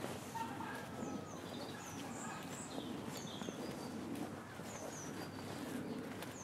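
Small birds chirping in short, high, repeated double notes, over the footsteps of someone walking on a path.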